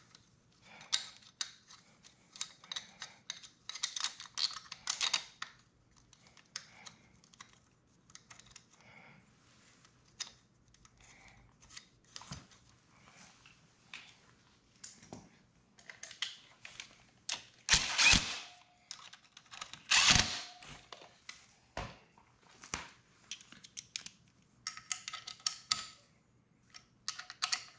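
Hand tools clicking and clinking on metal parts of a motorcycle as a part is refitted and its bolts snugged down, with two louder ringing metal clanks about two-thirds of the way through and a quick run of clicks near the end.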